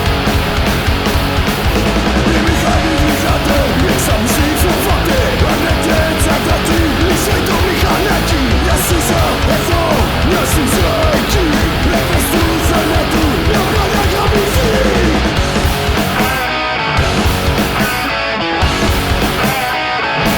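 Punk rock band recording playing: distorted electric guitars over bass and drums. Near the end the drums and bass drop out for short stop-breaks three times.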